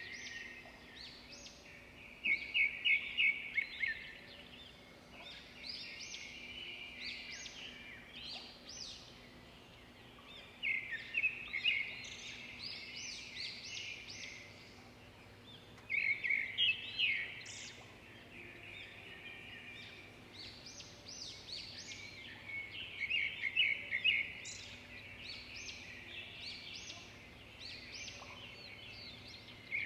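Songbirds singing: a loud, rapid song phrase of a second or two recurs about every six seconds over steady, quieter chirping from other birds, with a faint low hum beneath.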